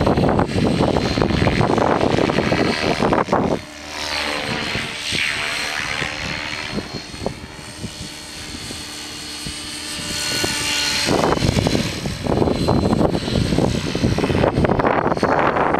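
Align T-Rex 600EFL Pro electric RC helicopter in flight, its motor and rotor whine rising and falling in pitch as it moves about. Heavy wind buffets the microphone for the first few seconds and again from about eleven seconds in, and the whine comes through clearer in the lull between.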